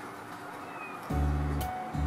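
Background music: quiet for about the first second, then low, held bass notes come in about a second in.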